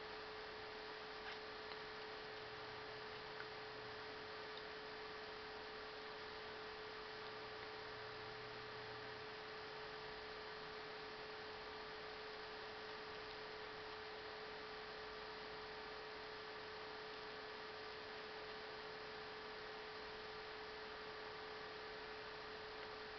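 Steady electrical hum with a constant tone and a background hiss, with a few faint ticks in the first few seconds.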